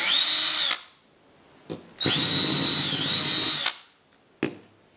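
DeWalt cordless drill/driver running twice, first for about a second and then for about a second and a half, backing screws out of a rubber electrical box; its whine dips briefly partway through the second run. Light clicks between the runs and again near the end.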